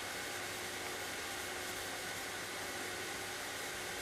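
Steady, even hiss with a faint low hum, unchanging throughout and without any stroke-by-stroke rhythm.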